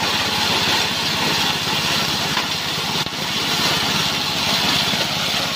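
Small gasoline engine running steadily under load, driving a multifunction chopper-grinder that is milling dry cassava into powder: a fast, even engine pulse under a broad grinding hiss, with a brief dip about three seconds in.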